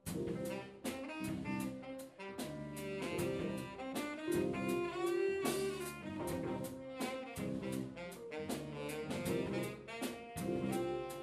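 A jazz band starts a slow number together, playing the instrumental intro: a saxophone carries the melody over electric guitar and a drum kit keeping a steady beat.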